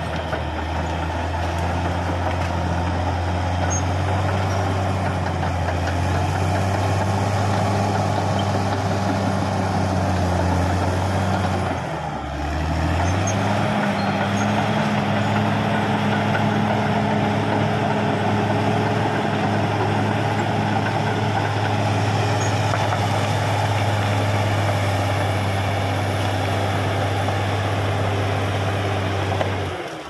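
Caterpillar D6R XL bulldozer's diesel engine running steadily under load while clearing brush, with a short break and a slight change in its note about twelve seconds in.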